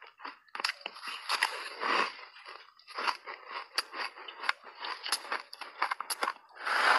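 Ice chunks dusted with matcha powder being bitten and chewed close to a clip-on microphone: a dense, irregular run of sharp crunches and cracks.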